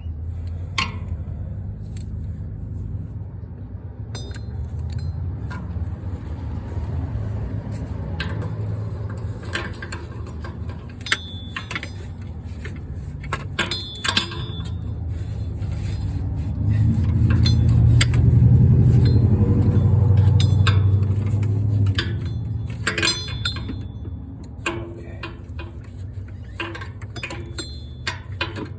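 Metal hand tools clinking: sockets, extensions and a ratchet knocking against each other and the engine parts, in scattered sharp clicks. A low rumble runs underneath, swelling to its loudest about two thirds of the way in, then fading.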